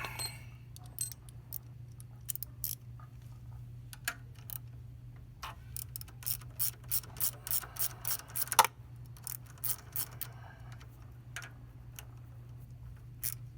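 Hand ratchet clicking in short runs as a 10 mm bolt on a motorcycle's rear-set footpeg mount is backed out. Scattered clicks at first, then a steady run of about three clicks a second through the middle, with one louder click near the end of that run.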